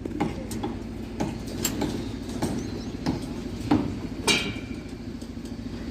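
Irregular knocks and clanks of construction shuttering work, about two a second, over a steady low hum; one clank about four seconds in rings briefly like struck metal.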